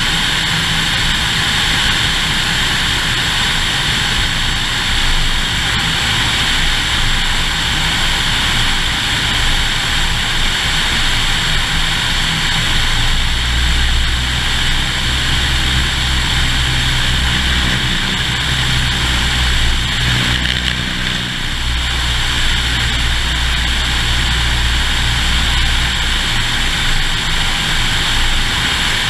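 Single-engine Cessna's piston engine and propeller droning steadily in flight, heard from a camera mounted on the outside of the fuselage, with a steady rushing hiss of airflow over it. The sound dips briefly about two-thirds of the way through.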